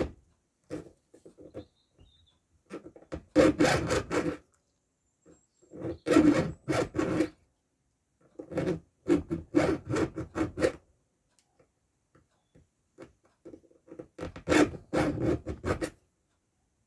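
A file rasping across the cutting teeth of a chainsaw chain as it is sharpened by hand: four sets of quick back-and-forth strokes, each a few seconds long, with short pauses between them.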